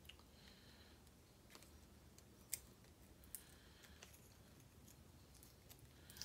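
Faint small metallic clicks and taps from handling a Kwikset lock cylinder as it is taken apart, with two sharper clicks in the middle.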